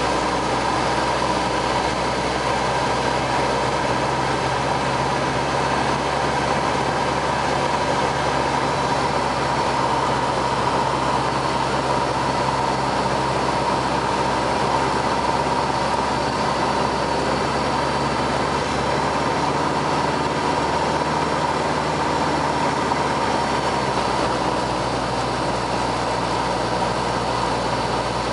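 Cessna 172RG's four-cylinder Lycoming engine and propeller running steadily on final approach, heard inside the cabin as a constant drone with a steady whine and airflow noise.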